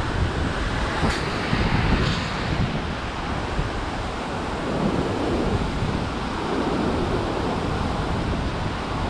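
Ocean surf surging and breaking against the foot of a sea cliff, a continuous rushing wash with low rumbling swells, mixed with wind buffeting the microphone.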